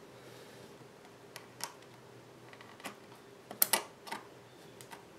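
A handful of light, scattered plastic clicks and snaps as the lid of a plastic deli cup is pried loose with metal tweezers and fingers; the sharpest pair of clicks comes a little past halfway.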